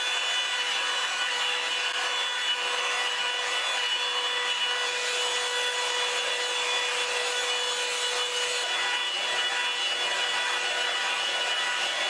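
Revlon One Step hair dryer brush running steadily: a rush of blown air with a motor whine, as the brush is drawn through hair. The lowest note of the whine drops away about three quarters of the way through.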